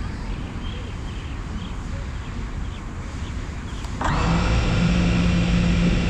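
Wind rumbling on the microphone, then about four seconds in the FPV quadcopter's brushless motors start up and spin at idle with a steady electric whine, cutting off after about two seconds.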